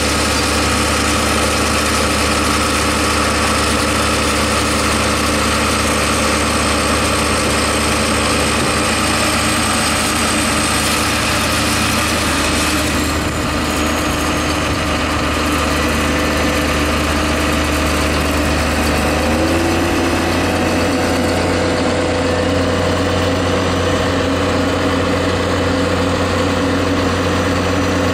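John Deere 7530 tractor's six-cylinder diesel engine running steadily while stuck in deep mud, its pitch shifting about twelve seconds in and again about twenty seconds in.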